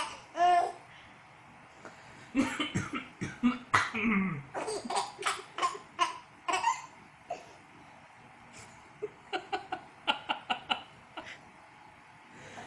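A man coughing in short, repeated bouts and a baby giggling and laughing at the coughs, in several clusters with quiet gaps between them.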